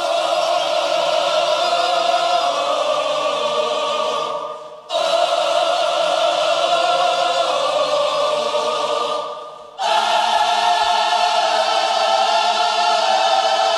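A large choir singing long held chords in three phrases of about five seconds each, with short breaks between them.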